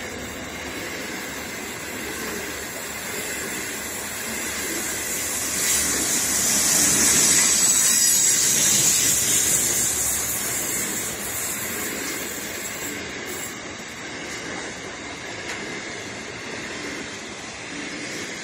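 Freight train of covered hopper wagons rolling past at speed: a steady rumble of wheels on rail. A high hiss swells about six seconds in and fades again after about ten.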